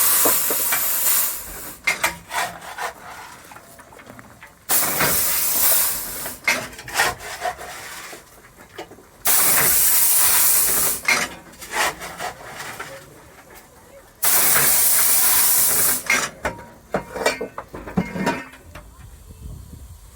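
Narrow-gauge steam locomotive letting off steam in four loud hissing bursts, each lasting a second or two, about every five seconds. Short metallic clanks and knocks come in between.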